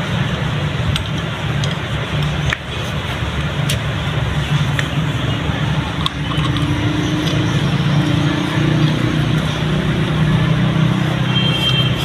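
Steady low rumble throughout, with a few sharp metallic clicks in the first few seconds as a socket wrench works the oil strainer cap nut on a Suzuki GS 150 SE motorcycle engine.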